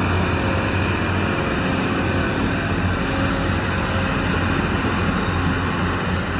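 Steady, even machine rumble like a running heavy-vehicle engine, with a strong low hum.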